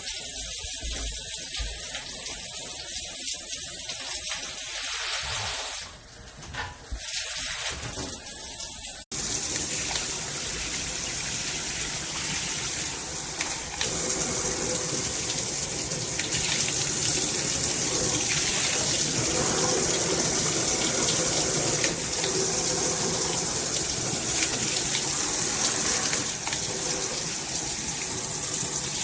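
Water spraying from a Moen Magnetix handheld shower head, a steady hiss that dips briefly about six seconds in. About nine seconds in it changes abruptly to a fuller, heavier rush of water.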